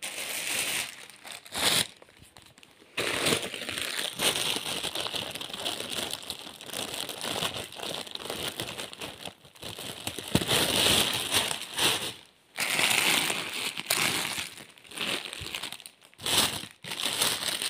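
Clear plastic packets of hair accessories crinkling and rustling as they are handled and sorted through by hand, with a few short pauses.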